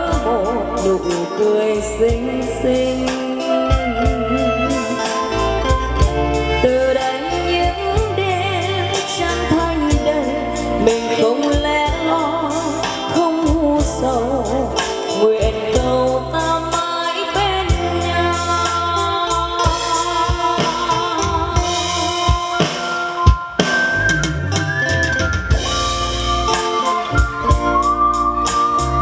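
Live band playing a slow pop ballad on drum kit, electric guitars, bass and keyboard, with a steady drum-and-bass beat under a wavering lead melody. A single sharp drum hit stands out about 23 seconds in.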